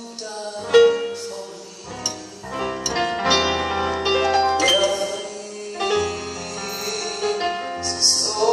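A man singing a church song into a microphone over piano and bass accompaniment.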